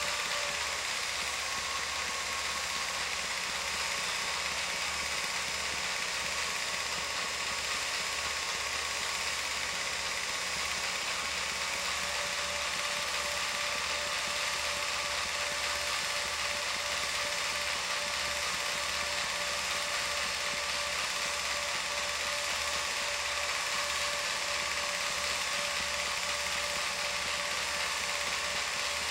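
Home movie film projector running: a steady mechanical whirr with an even rhythmic pulse from the film advance and a faint steady whine over a hiss.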